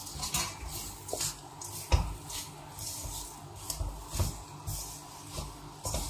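A spoon scraping and knocking against a kadhai while stirring a sticky mixture of melted dates and chopped dry fruits: irregular scrapes with a louder knock about two seconds in.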